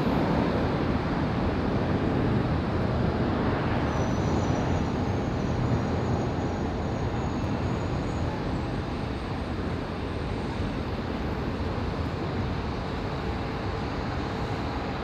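Jet roar of a Boeing 717's twin rear-mounted Rolls-Royce BR715 turbofans as it climbs away after takeoff: a steady rumble that slowly fades.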